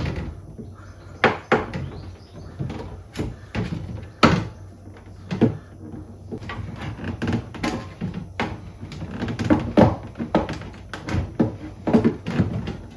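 Irregular plastic knocks and clicks from a tool being worked between a rear bumper diffuser and its wedge-shaped barb clips, pushing down to release them.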